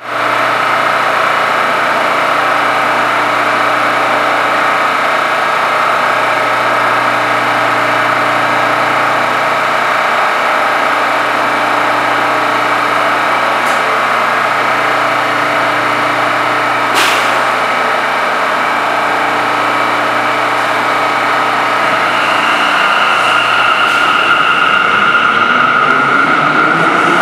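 R179 subway train standing at a platform, its on-board equipment giving a steady hum made of several steady tones. Near the end the hum changes and the traction motors start a rising whine as the train begins to pull away.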